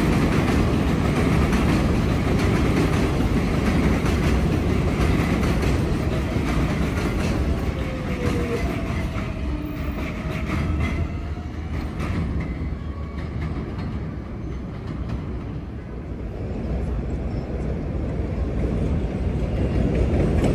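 Flushing Line subway train of R188 cars running along the track, a loud, steady rumble that eases off past the middle and builds again near the end, with a faint whine that rises and falls partway through.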